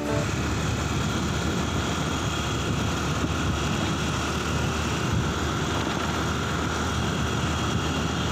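Steady rumble of riding on a motorcycle, with wind buffeting the microphone over the engine and road noise.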